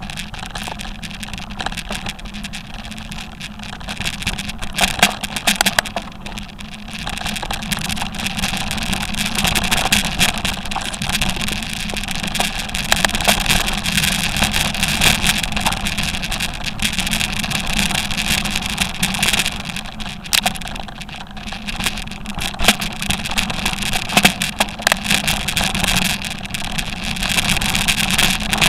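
Off-road motor vehicle's engine running steadily under load along a rough rocky trail, with frequent knocks and rattles from stones and the chassis.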